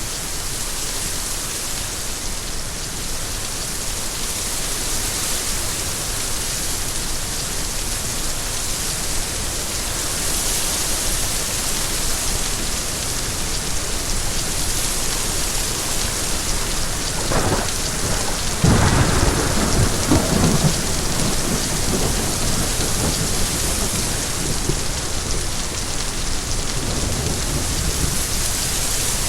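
Steady rain falling, with a clap of thunder a little past the middle that rumbles on for a few seconds.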